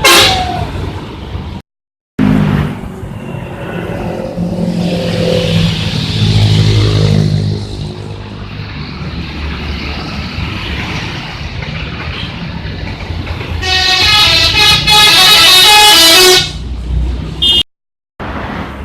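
A bus engine running, then, about 14 seconds in, a loud multi-tone 'telolet' musical bus horn sounding for nearly three seconds. The clips are joined with brief gaps of silence.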